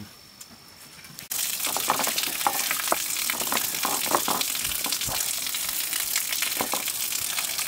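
Hands washing potatoes in a metal basin of muddy water: irregular splashing and sloshing over a steady watery hiss, starting abruptly about a second in after a quiet stretch.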